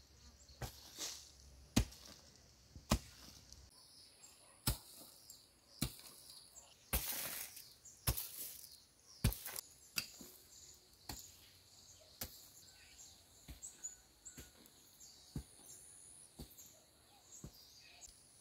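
A hand tool chopping, with sharp strikes roughly once a second, over faint insects chirping.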